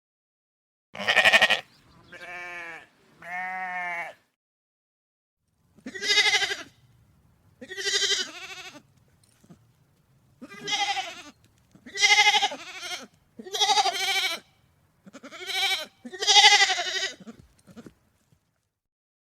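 Sheep bleating: about ten separate bleats, each lasting about a second. A loud, high first bleat is followed by two quieter, lower ones, then about two seconds of dead silence, then a run of seven more bleats over a faint low background.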